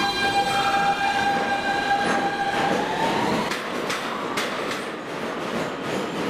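R160 subway train pulling out of the station: its AC traction motor drive gives a steady whine that rises in pitch about three seconds in, then the wheels start clicking over rail joints, the clicks coming faster as it speeds up.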